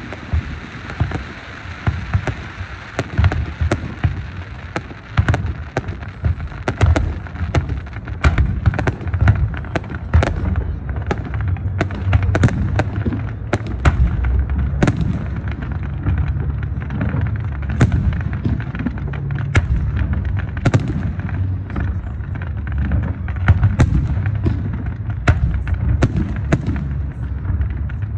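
Fireworks display going off: a dense, unbroken run of sharp bangs and crackles, many each second, over a steady low booming.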